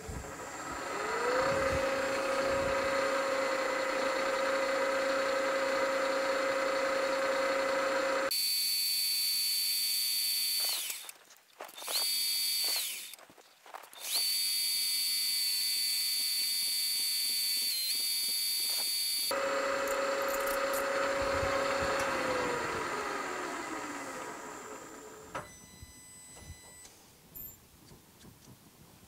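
Vertical milling machine spindle spinning up and running at a steady pitch. Through the middle a small drill bit cuts an angled port hole in a model steam engine cylinder, with a high steady whine broken twice. Near the end the spindle winds down.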